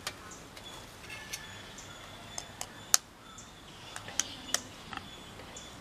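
A kitchen knife tapping eggshells to crack eggs over a stainless-steel bowl: a series of sharp, irregular taps, the loudest about three seconds in.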